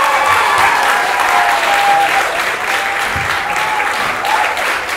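Audience applauding steadily as a comedy set ends, with a drawn-out whoop from someone in the crowd over the clapping for most of the first four seconds.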